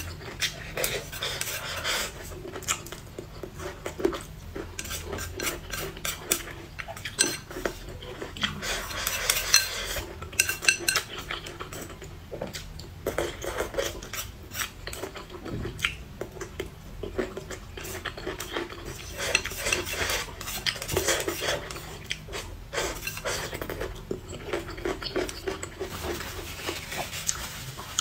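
Close-up eating sounds: utensils clicking and clinking against dishes many times at an irregular pace, with chewing and mouth noises between.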